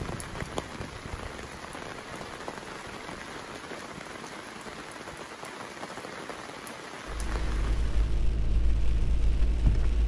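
Steady rain falling on a surface, an even hiss with a few sharp drops ticking. About seven seconds in, a louder low rumble of a vehicle driving through the rain takes over, heard from inside the cab.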